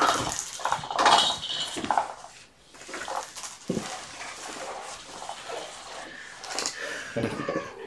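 Kittens scrambling and playing on a cloth pet hammock with a wooden frame: quick rustling, knocking and light clattering, busiest in the first two seconds and again near the end.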